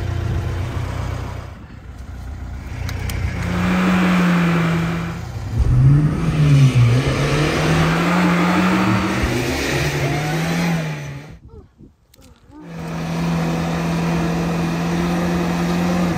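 A classic Lada sedan's engine is revved hard while the stuck rear wheels spin in mud. The pitch rises and falls again and again. The sound cuts out for about a second, then the engine holds a steady high rev.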